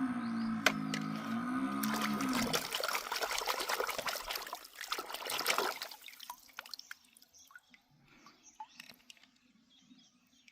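Water pouring and trickling with splashes, thinning out after about six seconds to faint scattered drips. A wavering low hum sounds over the first couple of seconds.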